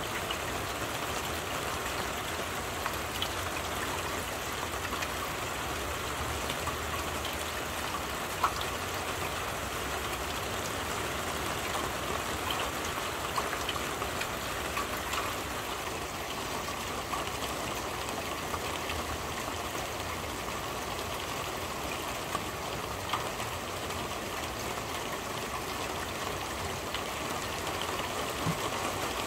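Steady rain falling on a corrugated roof overhead, with a few sharper drip taps scattered through it.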